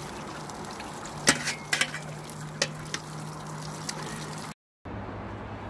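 Hot sparge water pouring from a pot onto a grain bed in a mash vessel, with a few sharp knocks in the middle. The sound cuts off suddenly near the end.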